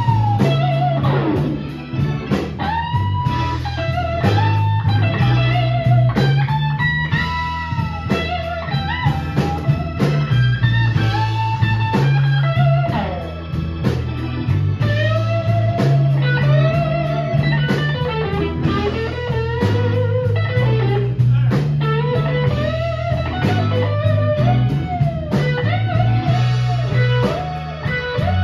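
Live blues band: a semi-hollow-body electric guitar plays a lead line full of string bends over a steady bass guitar line.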